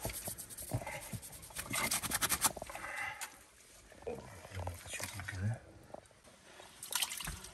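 Rapid scraping and clicking of hands and tools working in earth, in two runs, with low voices in between.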